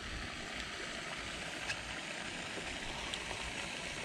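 Steady outdoor background noise, an even hiss with no distinct source, broken by a few faint ticks.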